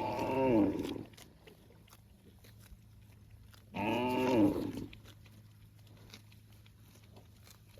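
Cow mooing twice, a few seconds apart. Each call is about a second long and rises then falls in pitch.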